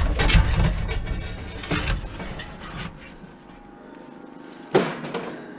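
Scrap metal clattering and banging as it is handled, with a heavy low rumble through the first couple of seconds. A single sharp clank comes near the end.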